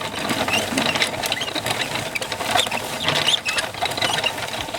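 Hand-cranked ice cream maker being churned: a steady, busy rattle of the crank's gears with the ice and rock salt grinding around the canister.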